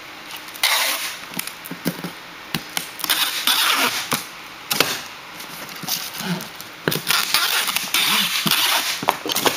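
Packing tape pulled off a handheld tape gun dispenser across a cardboard box: several rasping runs of tape unspooling, about a second each, with sharp snaps and knocks between them as the tape is cut and pressed down.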